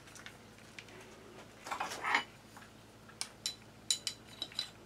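Handling noise as a MagnetoSpeed Sporter chronograph's bayonet is fitted onto a rifle suppressor: a soft rustle about two seconds in, then a quick series of light metallic clicks and clinks near the end.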